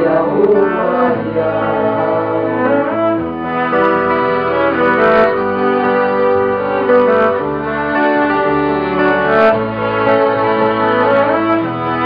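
Live acoustic band in an instrumental passage: cello and violin hold long bowed notes over a strummed acoustic guitar, the chord changing every second or two. A male voice sings briefly at the very start.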